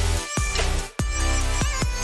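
Electronic background music with a heavy bass and a steady beat, dropping out for an instant just before the one-second mark.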